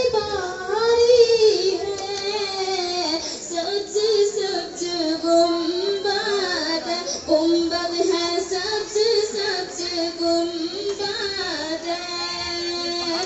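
A high voice singing a slow melody over music, gliding between notes and holding some of them long.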